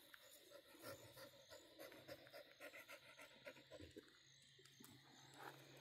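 Near silence, with faint soft sounds coming about three times a second.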